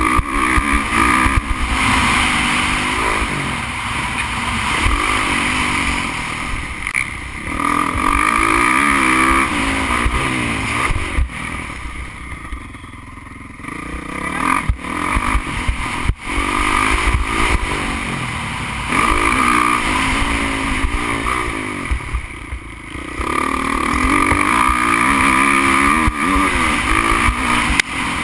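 Motocross bike engine at race pace, heard from on the bike, its pitch rising again and again as it revs through the gears. The throttle is shut off twice, briefly: about twelve seconds in and again about twenty-two seconds in.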